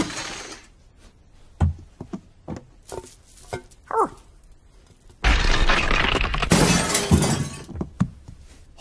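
Cartoon sound effect of heavy furniture, a grandfather clock among it, toppling and smashing down. The tail of an earlier crash fades away at the start, a few small knocks follow, and about five seconds in comes a long smashing crash lasting about three seconds.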